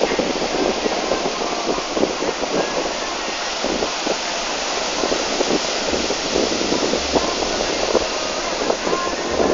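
Wind buffeting the microphone over a steady rush of surf, gusting unevenly throughout.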